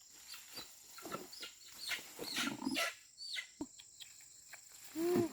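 Birds calling: a quick run of short, falling chirps, then one short, louder call near the end.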